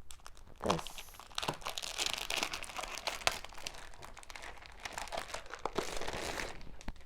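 Crinkling and rustling of paper and packaging being handled: a run of quick dry crackles, heaviest about two seconds in and again near the end.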